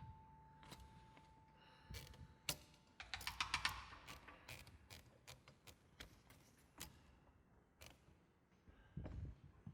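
Typing keystrokes, scattered single clicks with a quick flurry of keys about three seconds in, while a held ringing note dies away. A soft low thump sounds near the end.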